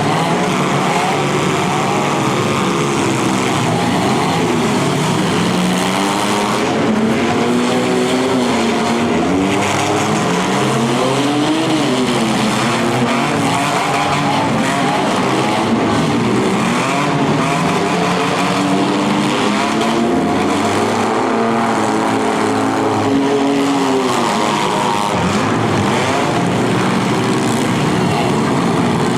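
Demolition derby cars' engines running hard, several at once, revving up and down in overlapping rising and falling pitches.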